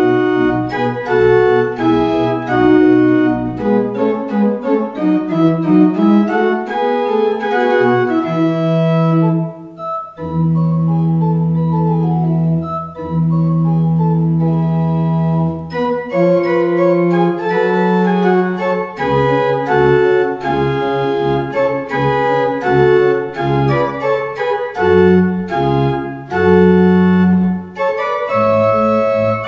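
Church organ playing a postlude: full sustained chords over a moving bass line. About a third of the way in the chords settle into long held low notes for several seconds, then move on again.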